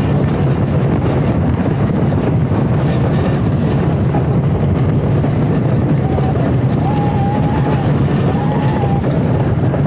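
Raven wooden roller coaster train running fast along its track, a loud continuous rumble mixed with heavy wind rush over the microphone.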